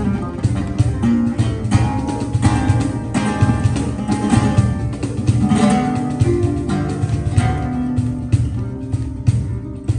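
Live acoustic trio playing: acoustic guitar and kora plucking interwoven lines over steady hand strokes on a cajón.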